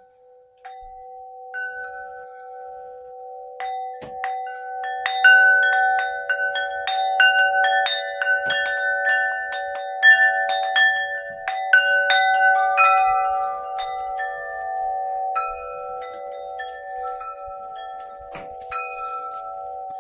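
Chimes ringing: a steady hum of held low tones, joined a few seconds in by a quick, busy run of struck higher notes that thins out in the second half.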